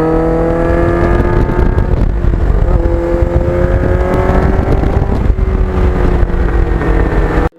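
Kawasaki Ninja GPX750R's inline-four engine through a Norton muffler, pulling under acceleration. The engine note climbs, drops after a shift about two and a half seconds in, then climbs again, over a heavy low rumble. The sound cuts off abruptly near the end.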